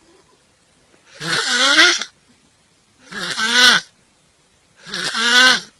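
A person snoring loudly: three rasping snores about two seconds apart, each with a high, wavering pitched tone running through it.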